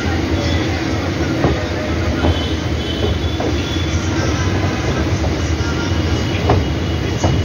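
MEMU electric train running over the rails, heard at an open coach window: a steady low rumble of wheels on track, with a handful of irregular sharp clacks as the wheels cross rail joints and points. A thin, faint wheel squeal comes and goes.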